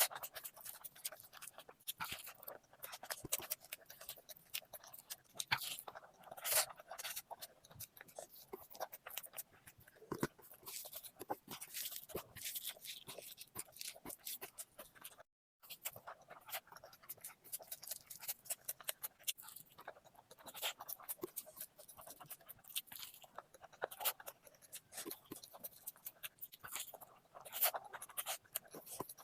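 Close-up eating sounds: a person chewing and smacking their lips in a steady irregular run of wet clicks and crunches, broken by a moment of total silence about halfway.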